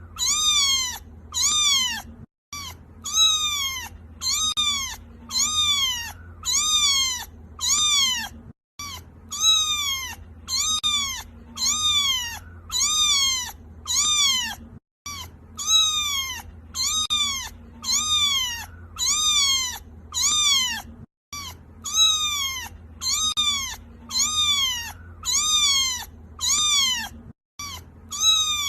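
Kitten crying with a quick run of high-pitched meows, about one and a half a second, each call rising and then falling in pitch. The same short recording repeats, with a brief silent gap about every six seconds.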